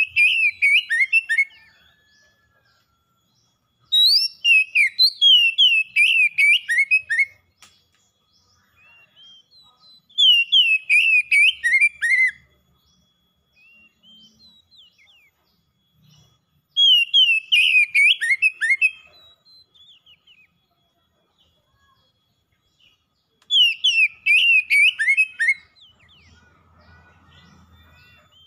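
Oriental magpie-robin singing in full song: five phrases of rapid, loud whistled notes that slide downward, each lasting two to three seconds, with pauses of a few seconds between them.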